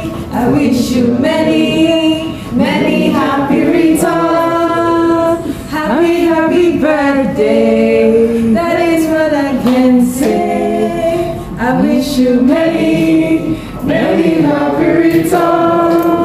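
A group of people singing together without instruments, women's voices prominent, in held and sliding notes.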